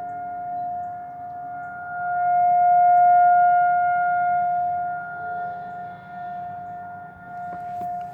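Federal Signal 2001-SRNB rotating tornado siren sounding one steady, unbroken tone at full speed. It swells louder for a few seconds in the middle as the turning horn sweeps toward the listener, then fades back.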